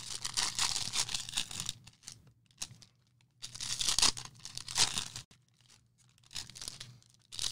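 Plastic trading card pack wrappers being torn open and crinkled in three bursts with short pauses between, the last one weaker.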